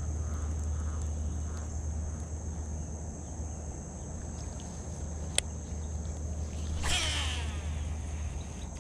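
Pond-bank ambience during a lure retrieve: a steady high insect drone over a low rumble, a sharp click about five seconds in, and a brief swishing rush about seven seconds in.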